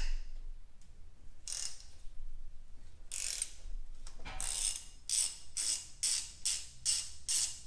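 Hand ratchet with a 13 mm socket clicking as it backs out the bolt on the oil filter housing lid. There are two short runs of clicks, then steady back-and-forth strokes about three a second from a little past halfway.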